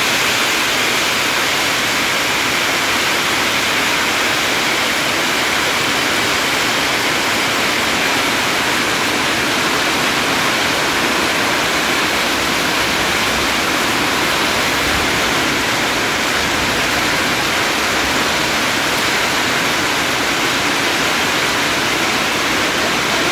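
Hailstorm: hailstones and rain pelting down onto the ground and metal surfaces, a loud, steady, dense rush of noise that does not let up.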